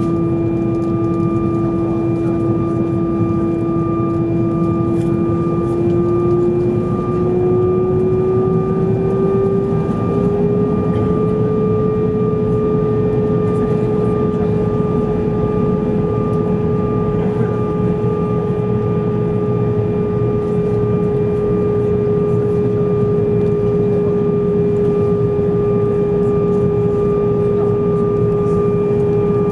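Airbus A320's jet engines heard inside the cabin over the wing while taxiing: a steady low rumble with a strong whine that rises in pitch about seven to ten seconds in as the engines spool up a little, then holds steady.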